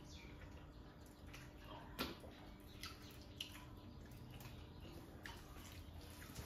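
Faint wet eating sounds: fingers squishing rice and fish curry against steel platters, with chewing and lip smacks. Scattered small clicks, the sharpest about two seconds in.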